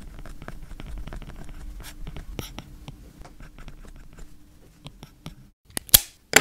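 Stylus writing on a tablet screen: a quick, irregular run of small taps and scratches over a faint steady hum, with one sharp, louder click near the end.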